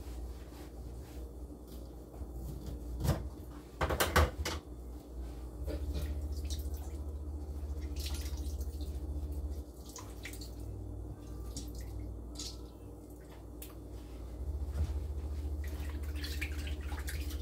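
Water running and dripping in a stainless-steel kitchen sink as raw chicken pieces are washed in a pot, coming on louder twice. A few sharp knocks near the start, from a knife cutting a lime over the sink.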